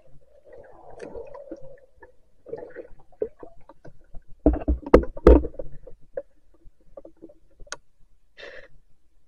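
Muffled underwater gurgling and knocks of a diver moving among sunken branches, heard through a submerged camera. A cluster of sharp knocks about halfway through is the loudest part, and a short hiss comes near the end.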